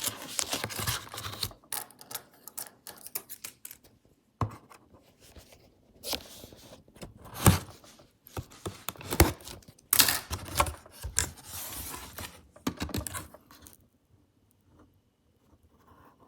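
Irregular scraping and rustling handling noise with several sharp knocks, dying away near the end.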